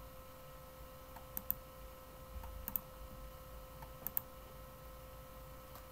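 Computer mouse clicking: three quick double clicks about a second and a half apart, over a faint steady electrical hum.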